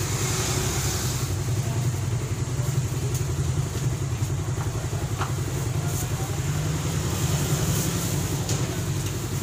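Motor vehicle engine idling steadily with a low drone, amid street traffic, as motorcycles ride past about four seconds in.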